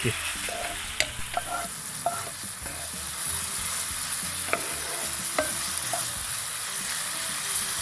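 Onions cooking in a frying pan with brown sugar and Worcestershire sauce, sizzling steadily as the sauce reduces down to a sticky glaze. A few light clicks of a utensil against the pan are heard here and there.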